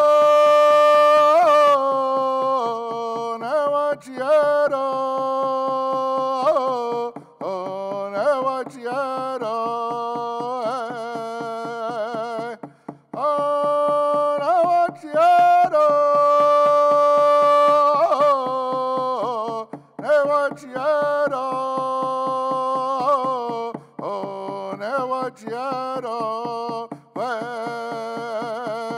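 Solo male voice singing a Native American prayer song in long held notes with short breaks, accompanied by a quick, steady beat on a hand drum struck with a stick.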